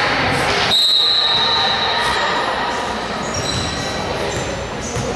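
Sneakers squeaking on a hardwood gym floor: many short, high squeals at different pitches over the steady din of a large gym.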